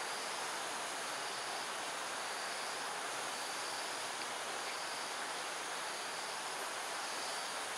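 Steady outdoor ambience: an even, dense hiss with faint, intermittent high-pitched insect chirring over it. No owl calls are heard.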